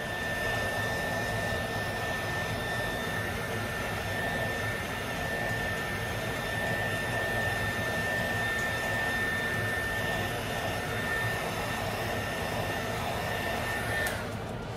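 Handheld craft heat gun blowing steadily with a high whine as it shrinks plastic wrap onto a bar of soap. It switches off abruptly near the end.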